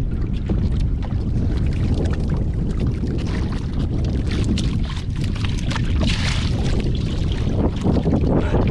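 Wind rumbling on the microphone over water sloshing around a small wooden outrigger boat, with scattered clicks and knocks throughout.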